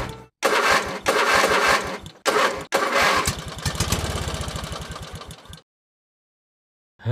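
Vehicle engine cranking and starting with two loud bursts, then running with an even low beat that fades and cuts off about five and a half seconds in.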